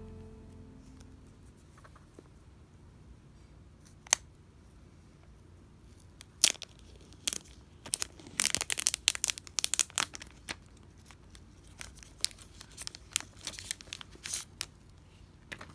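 Clear plastic shrink-wrap being torn and peeled off a new iPhone box by hand. A few isolated sharp crackles come first, then a dense run of crinkling and tearing about eight to ten seconds in, and scattered crackles after that.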